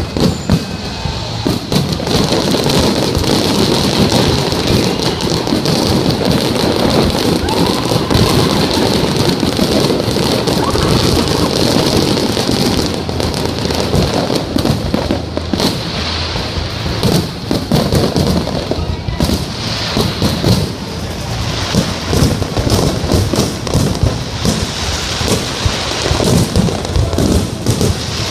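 Aerial fireworks display going off continuously, a dense run of bangs and crackling bursts with no gap.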